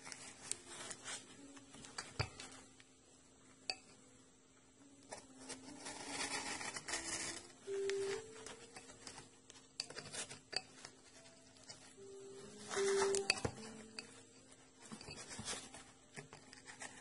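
Cardboard packaging being handled and opened by hand: rustling, scraping and light taps, with two longer rasping tears about six and thirteen seconds in. Faint background music with sparse notes.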